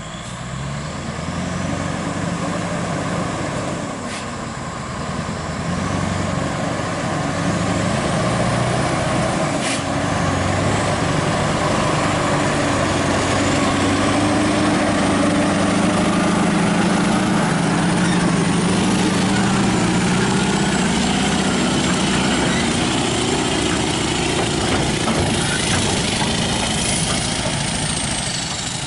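Scania R580's V8 diesel engine pulling a lowboy trailer loaded with an excavator slowly over a muddy road, its note shifting as the revs change. It grows louder in the first seconds, holds steady and loud through the middle, and fades slightly near the end as the truck passes.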